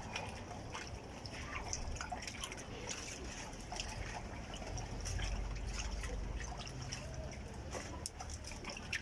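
Pot of bananas simmering, with irregular small pops and drips.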